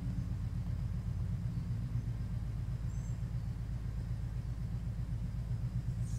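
A steady low rumble, with a brief faint high chirp about three seconds in.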